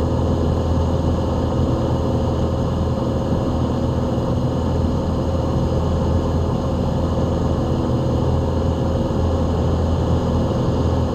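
Piper Archer's piston engine and propeller droning steadily in cruise, heard inside the cockpit, at an even, unchanging pitch and loudness.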